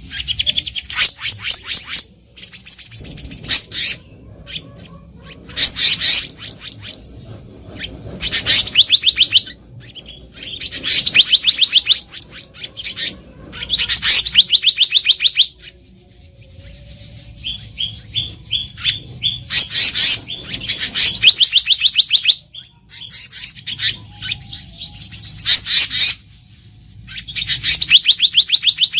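Black-naped monarch calling: repeated bursts of very rapid, high, ringing notes, each burst lasting one to two seconds, with short pauses between.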